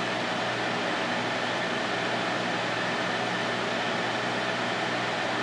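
Steady fan noise, an even whirring hiss with a faint steady hum underneath, typical of the ventilation running in an indoor grow tent.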